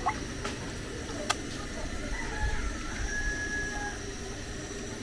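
A rooster crowing faintly in the background, a call of a little over a second that starts about two seconds in and ends on a held note. A single sharp click a little over a second in, over low background noise.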